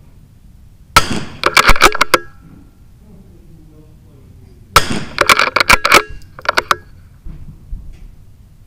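Sharp cracks of .22 LR rimfire rifles firing. A loud crack about a second in is followed by a quick run of several more. The same pattern comes again a little past the middle, with a couple of lighter cracks after it.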